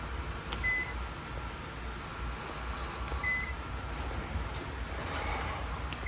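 Two short, high electronic beeps about two and a half seconds apart, over a low steady hum.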